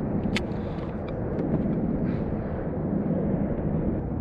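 Wind rumbling steadily on the microphone, with a sharp click about half a second in.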